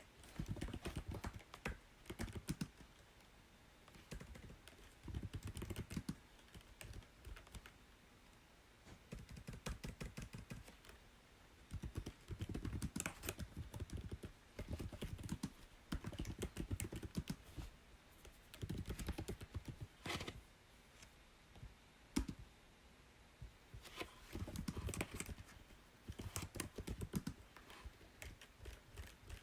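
Typing on a computer keyboard in quick bursts of keystrokes with short pauses between them. The keys land with a solid, low thud under each click.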